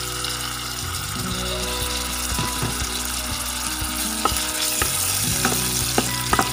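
Sliced shiitake mushrooms sizzling in hot oil with chopped garlic and shallots as they are dropped into a pan and stir-fried. From about four seconds in, a spatula clicks against the pan.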